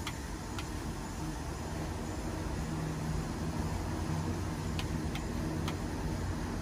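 Steady low rumble of a vehicle engine running, with a few faint clicks scattered through it.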